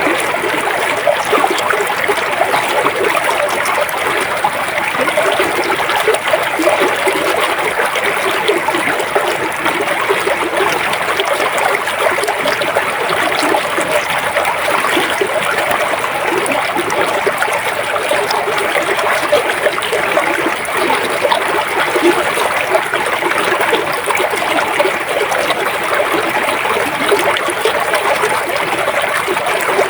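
River water flowing steadily: an even, unbroken rush of water with no pauses or changes.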